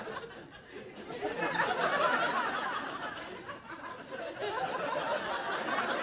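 Studio audience laughing and chuckling through a long pause, the laughter dipping briefly and then swelling again about a second and a half in.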